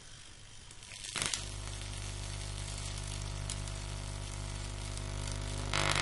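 Magnetron from a microwave oven, powered by a microwave oven transformer, switched on about a second in with a loud crackle. It then runs with a steady loud mains hum under a hiss from the plasma flame burning at its antenna, and cuts off abruptly after another loud burst at the end.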